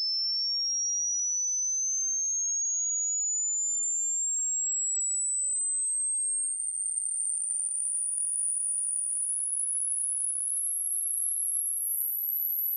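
Hearing-test sweep: a single pure sine tone that rises slowly and steadily in pitch, from a high whistle to a very high one by the end. The listener's age is judged by the point where they stop hearing it, since the highest pitches are the first to go as hearing ages.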